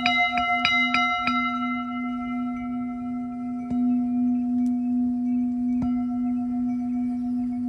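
Metal singing bowl played with a felt-headed mallet. A quick run of strikes on the rim comes in the first second or so, then a steady ringing hum with slowly pulsing overtones. It is struck again once about halfway through and once more near the end.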